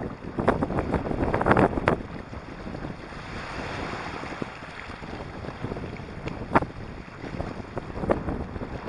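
Small waves washing in over a pebbly shore, surging strongly in the first two seconds and then settling to a softer hiss, with wind buffeting the microphone. A single sharp click comes late on.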